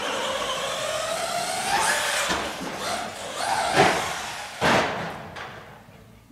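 Brushless electric RC short course truck (LRP Blast 2 chassis, Team Orion brushless motor) whining under power, the pitch rising over the first two seconds as it accelerates. Then sharp knocks, the loudest about four and five seconds in, as the truck hits the banked wall and crashes down upside down.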